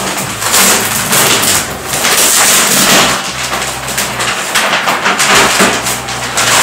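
Thick clear plastic wrapping crinkling and rustling loudly as it is pulled and lifted off a rolled, vacuum-packed mattress.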